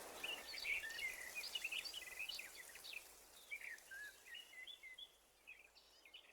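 Small birds chirping and twittering in quick, short calls, busiest in the first few seconds and thinning and fading toward the end.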